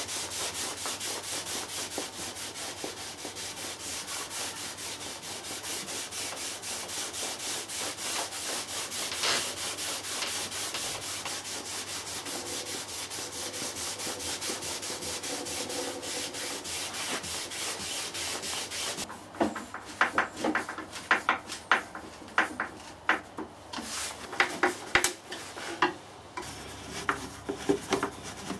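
A rag rubbing wood stain onto a pine board, a steady stream of quick rubbing strokes. About 19 seconds in it changes to a hand screwdriver driving a screw into a wooden panel, a series of sharp, irregular clicks.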